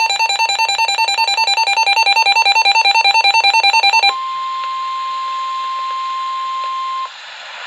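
NOAA Weather Radio alert tones. First comes a loud electronic alarm warbling rapidly between two pitches for about four seconds. It switches to a single steady warning alert tone around 1 kHz, which cuts off about three seconds later and leaves radio hiss.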